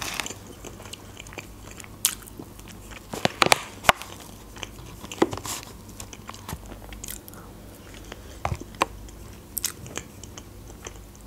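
Close-miked mouth sounds of a person eating a soft cream dessert: irregular wet smacks and chewing clicks, with a metal spoon scraping and tapping in a clear plastic container.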